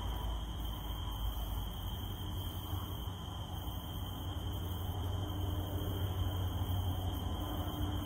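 Steady rain falling, with a continuous high, even drone of cicadas and a low rumble underneath.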